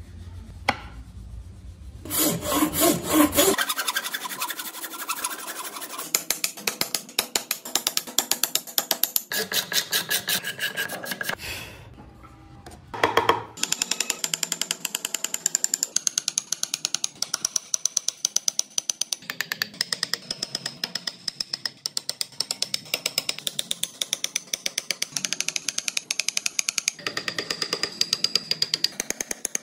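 Steel chisel cutting into wood, carving a wooden car body: a fast series of sharp chipping strokes, about three a second, with a short pause about halfway through.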